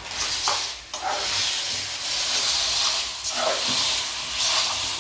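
Sausage, tomato and onion frying in a pan with pasta just added, sizzling with a steady hiss, with a few brief scrapes of stirring.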